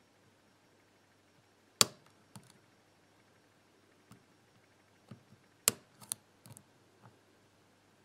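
Lock pick clicking against the pins inside a TESA round pin-tumbler cylinder held under a tension wrench: a handful of separate sharp metallic clicks, the loudest about two seconds in and again near six seconds, with fainter ticks between.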